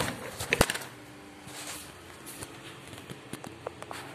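A mobile phone dropped and clattering: several sharp knocks as it hits the floor in the first second, then faint rustling and light clicks as it is handled.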